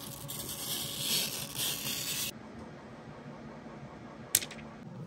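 Protective plastic film being peeled off a 3D printer's front glass door: a crackling, rustling peel that cuts off suddenly about two seconds in. A single sharp click follows near the end.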